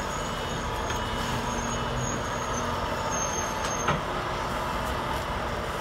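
Heavy truck with a multi-axle low-loader semi-trailer moving slowly: steady engine and road noise, with one sharp click about four seconds in.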